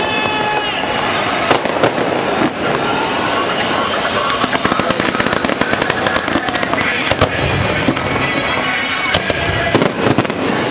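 Aerial fireworks bursting in rapid, repeated bangs and crackles, over pop music with singing.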